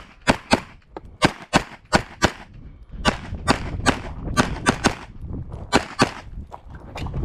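Glock 34 9mm pistol firing rapid strings of shots, mostly in quick pairs about a third of a second apart, about fourteen shots in all.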